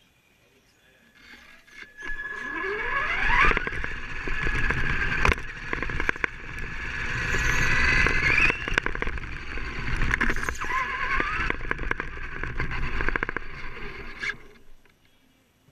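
Onboard sound of an electric RC race car running on carpet: motor and gear whine climbing in pitch as it accelerates about two seconds in, rising again several times along with rumble and scattered knocks, then dying away near the end as the car slows and stops.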